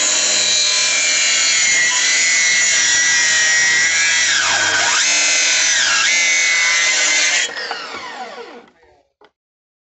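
Makita plunge-cut track saw running on its guide rail, crosscutting a timber rafter. The motor's pitch dips twice under load, about four and a half and six seconds in, then the saw is switched off and winds down with a falling whine about seven and a half seconds in.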